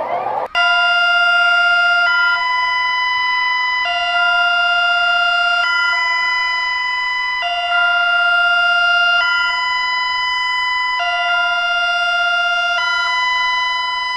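Electronic emergency alert alarm tone alternating between a lower and a higher pitch, switching roughly every two seconds. It cuts in abruptly about half a second in, replacing a sweeping siren sound.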